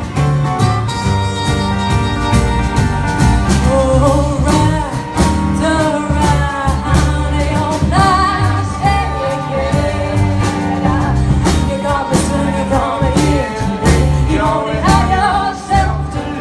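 Live acoustic folk band: acoustic guitars strummed over steady drum hits, with a woman's voice singing the lead from about four seconds in.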